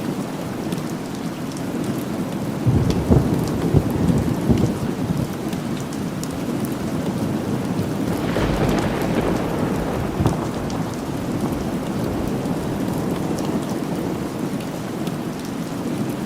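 Steady rain falling, with thunder rumbling about three seconds in and again around the middle.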